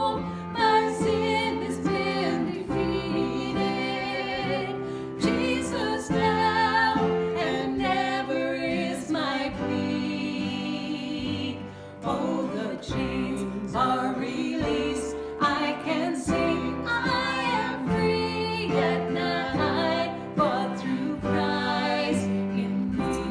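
A worship song: voices singing a melody over steady instrumental accompaniment.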